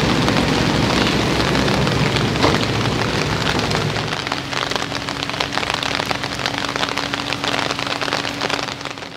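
Heavy rain pattering steadily, dense with individual drop hits. A low rumble lies under it for the first four seconds, after which a faint steady hum remains, and the sound fades out at the very end.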